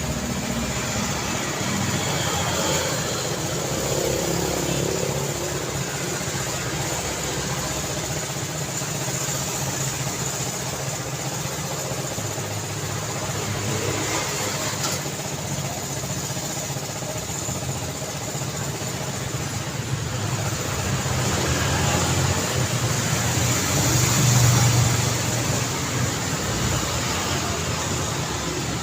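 Road traffic: a steady wash of cars passing with engine rumble and tyre noise, swelling as a louder vehicle passes close toward the end.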